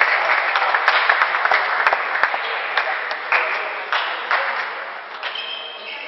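Audience applauding, the clapping thinning out and fading away gradually.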